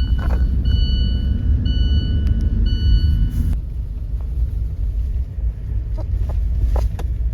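Car on the move: a steady low rumble, with a repeating electronic beep about once a second that stops about three and a half seconds in.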